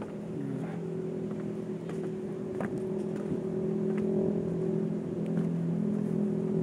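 An engine running steadily as a low, even hum that grows a little louder toward the end, with light scattered clicks of footsteps on the wooden boardwalk.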